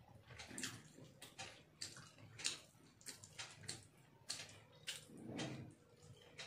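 Faint wet chewing and lip-smacking of a man eating biryani with his fingers: a string of irregular short smacks, a few a second.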